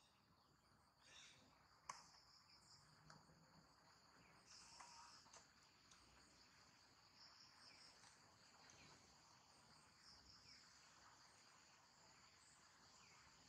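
Faint, steady high-pitched insect chorus, with a single sharp click about two seconds in.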